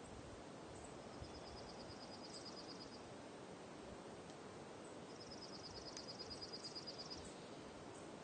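Soft outdoor ambience with a steady hiss. A high, rapid pulsing trill sounds twice, each time for about two seconds, the second louder than the first.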